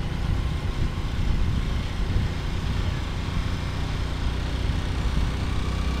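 Motorcycle engine running steadily while riding, heard from on board as a continuous low rumble.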